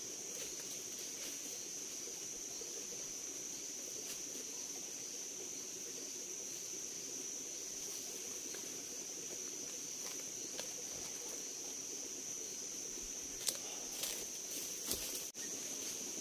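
Insects keep up a steady, high-pitched drone. A few sharp crunches of footsteps on dry leaf litter come near the end.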